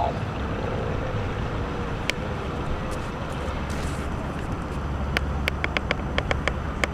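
Steady low rumble of background noise, like distant traffic, with a single sharp click about two seconds in and a quick run of clicks near the end.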